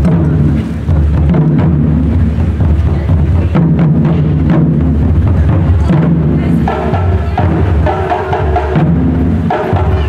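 Taiko ensemble beating barrel drums with sticks in a dense, driving rhythm of deep strokes and sharp clicks. A higher repeated tone joins in about two-thirds of the way through.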